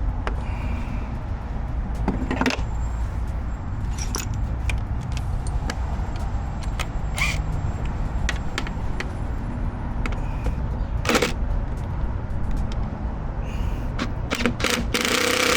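Scattered clicks and knocks of hand work on a car door's latch assembly over a steady low rumble, with a brief burst of hiss near the end.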